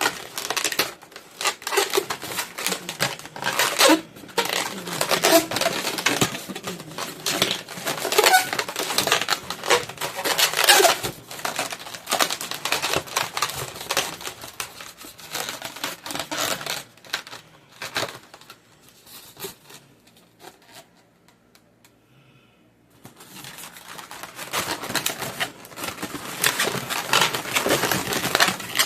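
Latex twisting balloons squeaking and rubbing as they are twisted and handled, in dense irregular squeaks and crackles, with a pause of near quiet about twenty seconds in.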